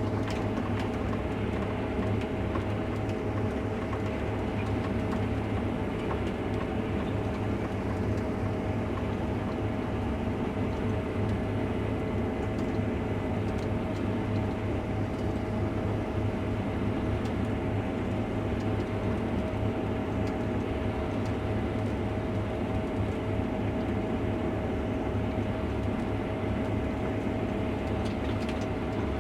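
Case IH Axial-Flow combine running steadily while harvesting wheat, heard from inside the cab: a constant engine and threshing drone with a steady whine over it.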